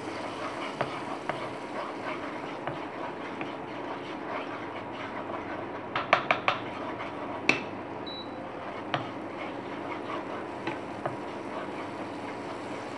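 Butter melting and sizzling gently in a non-stick frying pan kept on low heat so it does not burn, stirred with a silicone spatula. A quick run of clicks comes about six seconds in, with a few single clicks after.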